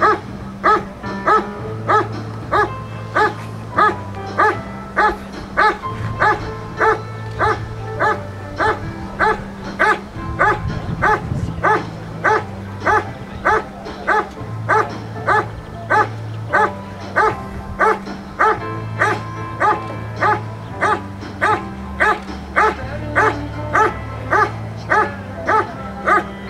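A dog barking steadily and rhythmically, about one and a half barks a second, guarding a protection-sport helper in the hold-and-bark exercise. Music plays underneath.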